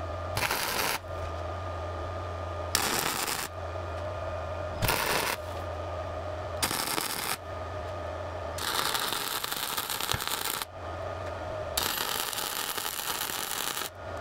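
Wire-feed welder tack welding steel plate: six bursts of crackling arc, the first four short and the last two about two seconds each. A steady low hum sounds between them.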